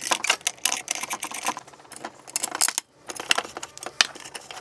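Light, rapid clicks and rattles of small metal machine screws, nuts and a screwdriver being handled and fitted while angle aluminium is bolted onto a row of stepper-motor drivers, with a short pause a little past the middle.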